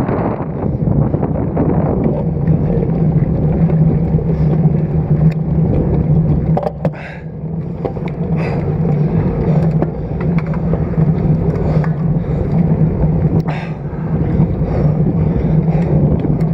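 Steady rushing and rumbling of wind and road noise on a road bike's stem-mounted action camera while riding, with a few short clicks.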